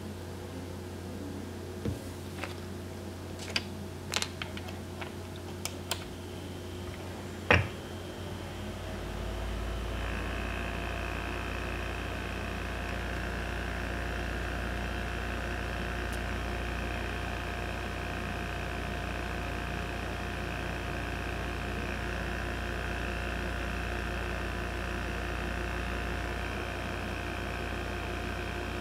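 A few sharp clicks and taps in the first eight seconds. About nine seconds in, a small personal heater switches on and runs with a steady fan whir and hum, warming the nail wraps.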